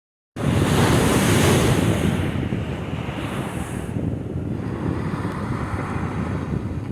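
Ocean surf breaking and washing up the beach, with wind rumbling on the microphone. The hiss of the breaking wave is strongest in the first two seconds, then settles into a lower, steadier wash.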